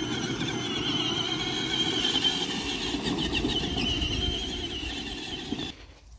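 Electric ride-on toy ATV's drive motor and gearbox whining, with several high tones wavering in pitch over a rough rumble of its wheels rolling. The sound cuts off suddenly near the end.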